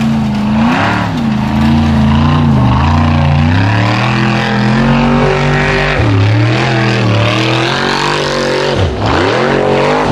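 Formula Offroad buggy's engine revving hard under load, its pitch rising and falling again and again as the wheels dig up a sandy hillside, with a sharp drop and quick climb back near the end.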